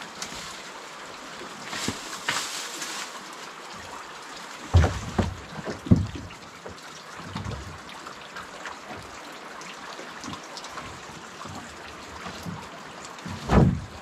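River water trickling and lapping at the bank and boat, with a few dull knocks, the loudest about five and six seconds in and near the end.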